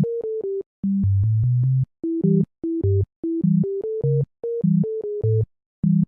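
Background music: a bouncy synthesizer tune of short, clipped notes stepping up and down over bass notes, with brief breaks between phrases.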